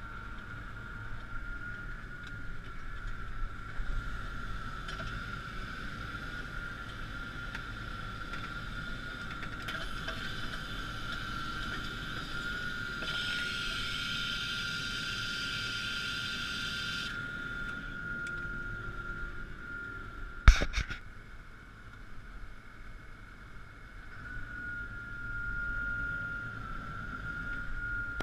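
Claas Axion 840 tractor running steadily while pulling a five-furrow plough: a continuous engine drone with a constant high whine over it. A hiss rises for a few seconds in the middle, and a single sharp click about twenty seconds in is the loudest moment.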